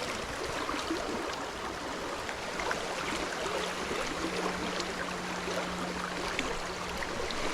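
Steady rush of a fast, rain-swollen river running high, with a few faint small clicks.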